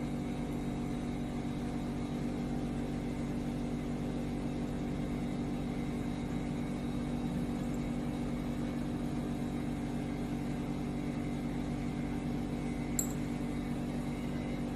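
Steady low machine hum, even in pitch and level, with a faint click about 13 seconds in.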